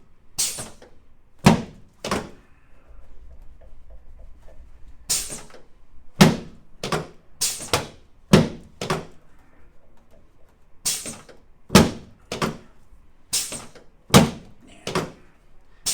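Chiropractic adjusting thrusts on the treatment table, worked over the patient's left sacroiliac joint: about sixteen sharp thunks in irregular groups of two or three.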